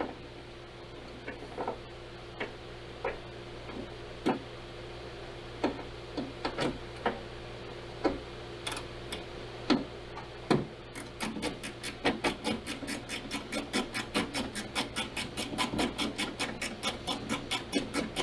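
Phillips screwdriver driving a small screw by hand, with scattered clicks and knocks at first, then a fast, even clicking at about four a second from about eleven seconds in.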